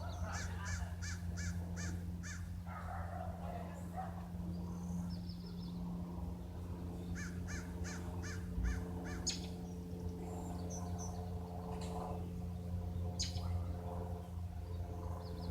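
A Cessna light plane's piston engine drones steadily overhead. Over it a bird gives two quick runs of about six short calls each: one at the start and one about seven seconds in.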